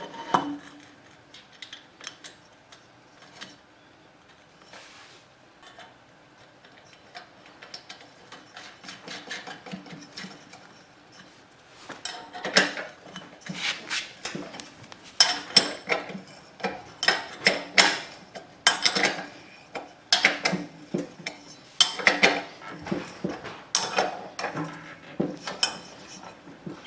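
Metal parts and hand tools clinking and clanking during work on a snowblower. It starts with scattered light clicks, and from about halfway through come several sharp metallic knocks a second, uneven in rhythm.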